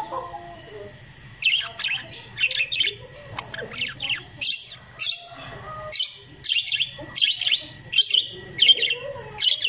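Parakeets chirping: a quick run of short, high chirps, about two a second, starting about a second and a half in.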